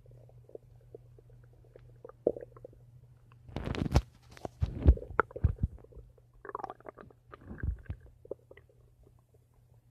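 Human stomach rumbling and gurgling: faint scattered gurgles, then a loud run of gurgles from about a third of the way in that dies away near the end, over a steady low hum.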